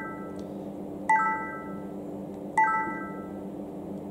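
Panasonic HC-V180 camcorder's operation beep: a short, bright multi-note chime as its touchscreen menu buttons are pressed. It sounds twice, about a second and a half apart, with the tail of an earlier one fading at the start.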